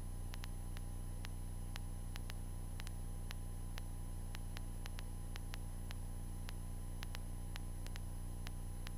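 Steady low hum and faint hiss with sharp, irregular clicks two or three times a second: electrical noise on the Cessna 152's headset audio feed, with no radio calls on it.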